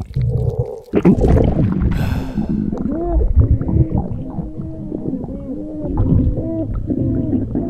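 Stomach-noise sound effects for a cartoon's swollen belly: a low, steady rumble with gurgles and long creaking groans that bend up and down in pitch.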